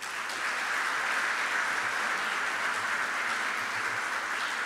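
Audience applauding: dense, steady clapping from many hands that breaks out all at once.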